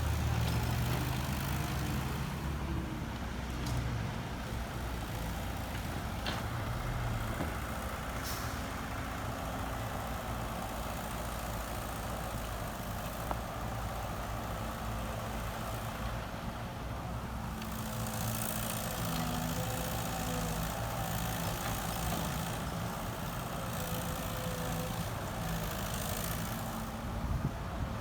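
Heavy diesel engine of construction machinery running steadily, with a few short sharp knocks in the first several seconds.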